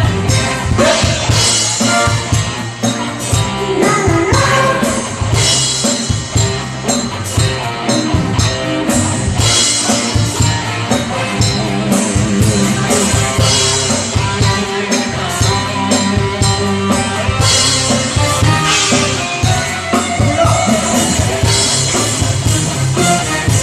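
Live cover band playing a rock/pop song: drum kit, guitar and bass keeping a steady beat.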